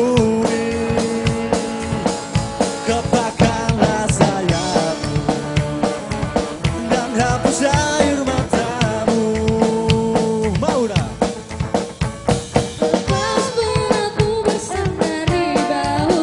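Live band playing: electric guitars over a drum kit with a steady beat.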